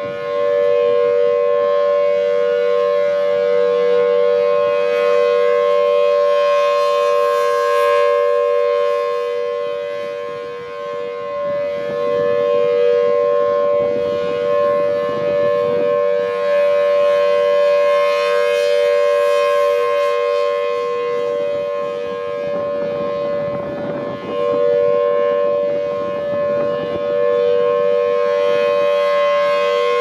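Federal Signal Thunderbolt 1000BT outdoor warning siren sounding its steady alert, a loud held chord of several tones that does not rise or fall in pitch. Its rotating horn sweeps past, so the sound dips around ten seconds in and again near the end before swelling back.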